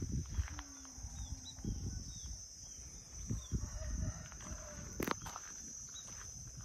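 Footsteps through orchard grass with handheld bumps, over a steady high buzz. There are a few faint short chirps and a single sharp click about five seconds in.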